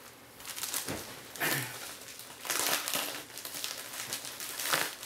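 Plastic mailer bag crinkling and rustling in irregular bursts as it is handled and pulled open by hand, the crinkling growing denser about halfway through. A soft low thump about a second in.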